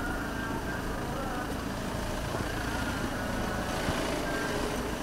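Steady rumble of road traffic with faint, indistinct voices murmuring over it.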